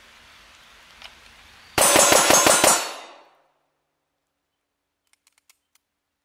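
A rapid string of about six pistol shots fired in roughly one second, each with a short ringing echo. This is a speed-shooting run of the kind used in a Bill Drill.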